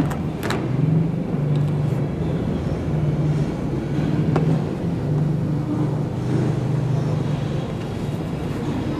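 Motor vehicle engine running with a steady low rumble that swells and eases from moment to moment.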